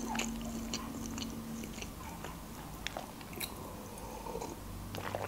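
Soft mouth sounds of eating close to the microphone: scattered small chewing clicks, with a low steady hum over the first second and a half. Near the end come sips and swallows from a glass.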